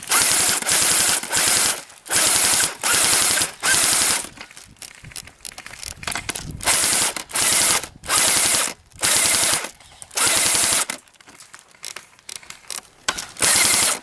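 Airsoft rifle firing about a dozen short full-auto bursts of covering fire, with a pause of a couple of seconds midway, then one last burst near the end.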